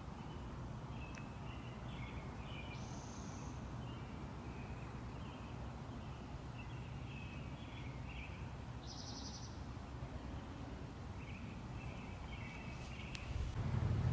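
Small birds chirping in short repeated calls, with two higher buzzy calls, over a steady low background rumble. Near the end a vehicle's rumble grows louder.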